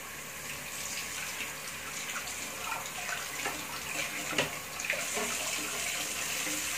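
Tap water running steadily into a sink as chillies are washed under it, with a few faint light knocks.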